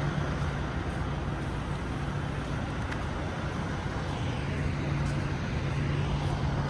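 Semi truck's engine and road noise heard from inside the cab while driving: a steady low drone with an even hum that grows a little stronger about four and a half seconds in.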